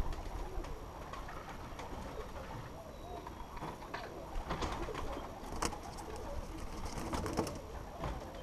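Racing pigeons cooing, with scattered short splashes as they bathe.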